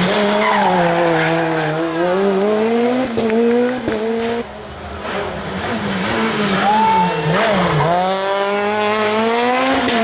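A rally car's engine revving hard on a stage. Its pitch falls and climbs again several times as it shifts gear and lifts off the throttle, with a few sharp cracks in between.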